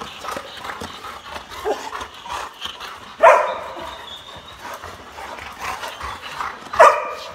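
Adult yellow Labrador Retrievers playing, one barking loudly twice, about three and a half seconds apart, with quieter vocal sounds between the barks.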